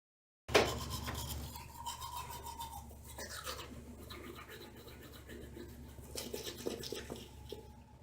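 Rapid, irregular rubbing and scraping strokes, starting about half a second in.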